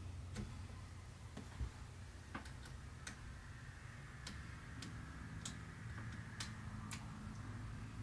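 Light, irregular clicks and taps of a microphone and its XLR cable being handled and plugged into a dynamic microphone, about a dozen in all, over a faint steady low hum.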